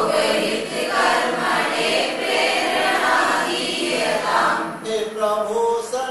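Many voices singing a Sanskrit prayer together in chorus. Near the end it thins to a single clearer voice carrying the next line.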